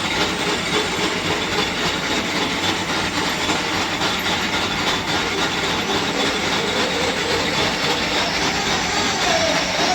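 A metal lathe running in the workshop with a steady, dense mechanical clatter. Near the end a whining tone dips briefly and then holds steady.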